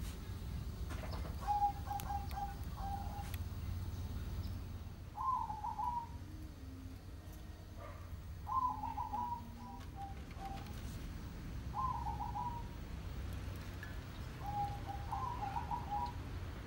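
A bird calling five times: short phrases of quick repeated notes, each about a second long, a few seconds apart, over a faint low rumble.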